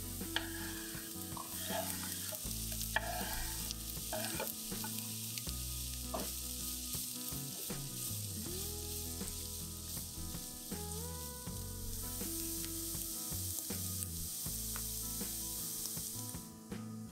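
Vegetables frying in olive oil in a pan, with a steady sizzle while they are stirred. The sizzle cuts off near the end.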